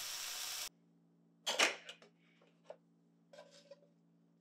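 Eggs and ham sizzling in a frying pan, stopping abruptly under a second in. Then a low steady hum with a few light clicks and scrapes of a spatula against the pan and plates.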